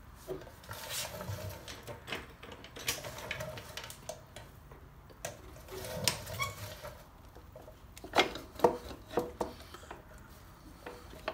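Scattered metal clinks and knocks as a Harley-Davidson Road King's rear wheel is wiggled and worked free by hand, with a cluster of sharper clanks about eight seconds in.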